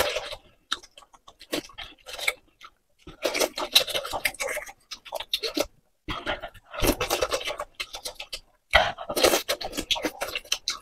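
Close-up mouth sounds of a person eating wontons in chili-oil soup: wet chewing, smacking and slurping, in spells with short silent gaps.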